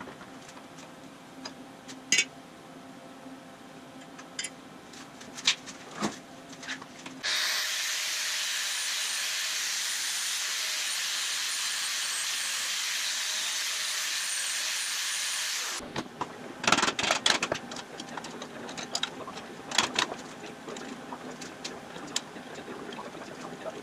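Angle grinder grinding steel, a loud, steady grinding that starts about seven seconds in, runs for about eight seconds and stops abruptly. Before and after it, scattered sharp metal clanks and knocks from tools and brake parts being handled.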